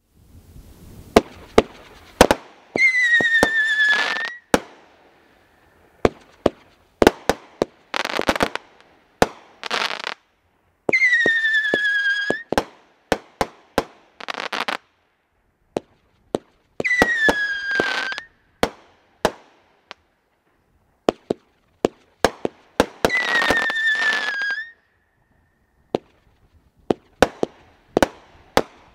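World Class 'Say What???' consumer firework cake firing its shots: a string of sharp bangs, with four whistles, each about a second and a half long and falling slightly in pitch, and several short noisy bursts between them.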